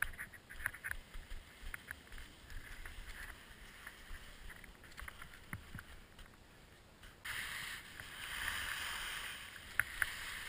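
Skis sliding and scraping over snow, with scattered sharp clicks; about seven seconds in the hiss suddenly becomes louder and steadier, as from a faster glide.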